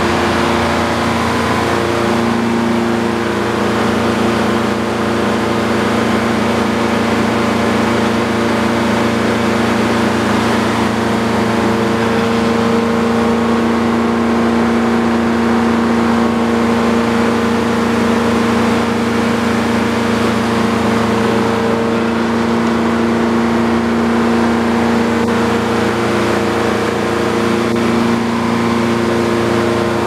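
The sawmill's engine running at a steady speed, with an even, unchanging hum.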